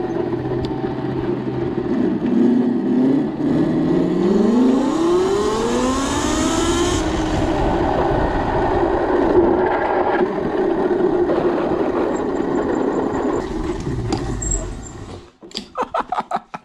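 6000 W 72 V electric motor on a mini bike whining as it accelerates, its pitch rising several times, with wind rush and tyre noise under it. Near the end it cuts to short bursts of a man laughing.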